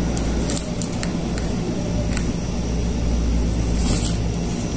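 Steady low background hum, with a few faint clicks and rustles from a telescopic fishing rod being handled in its fabric sleeve.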